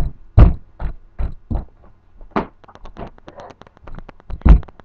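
Thuds and knocks of a scuffle, blows and bodies bumping, loudest at the start and again near the end. In the middle comes a quick patter of lighter clicks.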